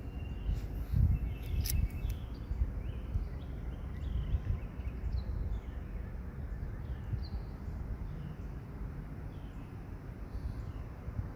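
Small birds chirping outdoors, short falling chirps repeated every second or so, over a low rumble. A brief sharp click comes about two seconds in.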